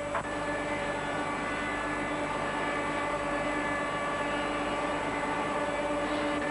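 Sawmill machinery running, a steady drone with a constant hum.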